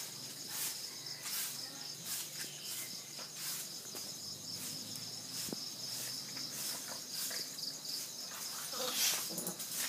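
Insects chirring steadily in a high, pulsing band, with soft scuffling from a dog and a puppy play-fighting. A louder, briefly pitched sound comes about nine seconds in.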